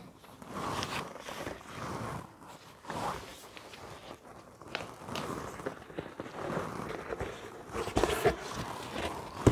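Packaging of a YouTube Gold Play Button being opened by hand: irregular rustling and scraping of the box and its covering, with a few sharp knocks near the end.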